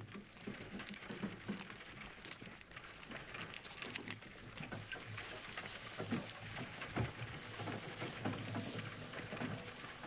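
Soft, dense crackling and tapping close to the microphone, many small clicks in quick succession, with a steady hiss coming in about halfway through.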